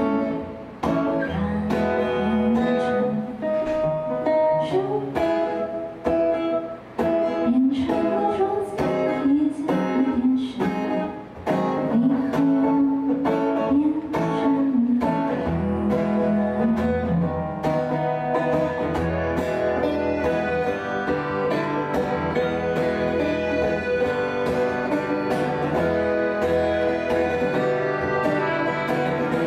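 Live song on button accordion and guitar, the guitar strummed steadily. A woman sings over them for roughly the first half; after that the accordion carries the melody with the guitar and no voice.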